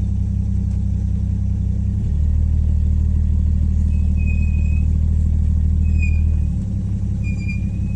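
1962 Rambler Classic's engine running as the car moves off. It gets louder and heavier about two seconds in and eases back about six and a half seconds in. Short, high squeaks from the brakes repeat from about four seconds in; the brakes seem to be dragging, as if trying to brake.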